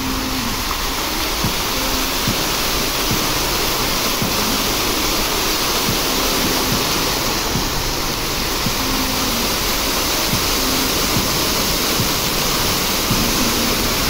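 Rows of vertical fountain jets shooting up and splashing back down: a steady rush of falling water.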